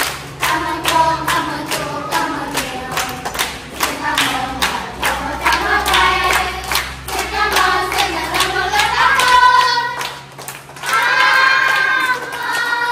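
A group of children singing together and clapping in time, about three claps a second. The singing breaks off briefly about ten seconds in, then picks up again.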